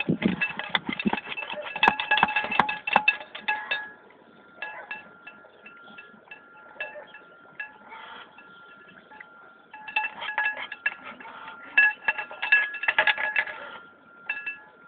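Dishes clinking and rattling against each other, with short ringing tones. There is a busy spell over the first four seconds and another from about ten to fourteen seconds, with a quieter stretch between in which a faint steady high tone lingers.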